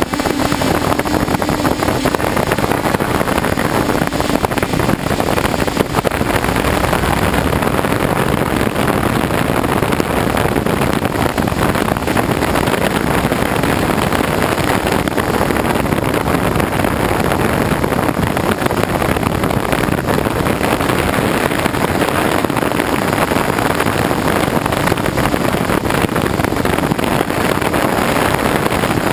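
DJI F550 hexacopter's motors and propellers running steadily in flight, heard from its onboard camera, mixed with wind rushing over the microphone. A low hum in the drone noise fades out in the first few seconds.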